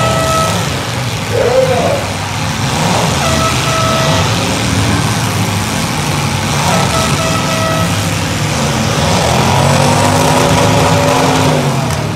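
Demolition derby cars' engines running in the arena, a loud steady low rumble. A flat high tone sounds three times, about a second each, and a lower steady tone comes in near the end.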